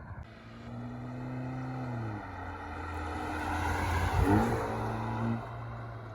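Haval H6 GT engine and exhaust running under load in Race mode. Its pitch holds, then drops about two seconds in as if on a gear change, and climbs again. It is loudest about four seconds in, with a sharp fall in pitch, and eases off near the end.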